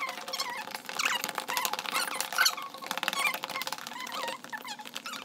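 Spoons stirring a mix of glue, shaving foam and paint in plastic tubs: rapid clicking and scraping with squeaks that waver in pitch.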